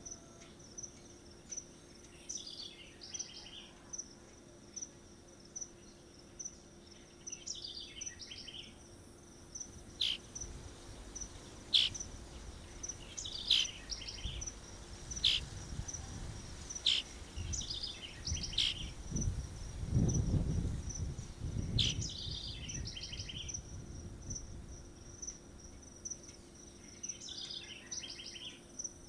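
A steady, high-pitched insect trill. Every few seconds there are short bursts of chirping calls, a few sharp clicks fall between them, and a low rumble swells in the middle.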